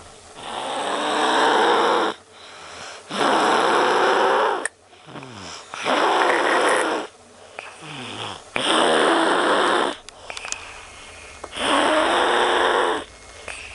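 A young boy snoring loudly in his sleep: five long snores, one roughly every three seconds, with quieter breathing between them.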